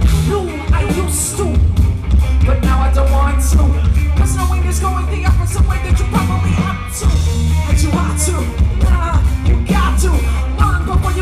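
Live band playing loudly: a heavy bass line with driving drums and frequent cymbal hits, and a melody line over it.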